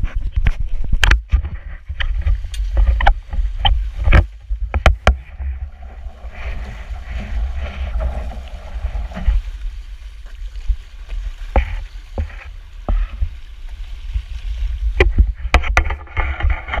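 Small sailing rowboat with outrigger floats speeding through wind-driven chop: wind buffets the microphone in a heavy steady rumble, and the hull and floats hiss through the water with frequent sharp slaps and knocks. The rushing of water is loudest for a few seconds around the middle.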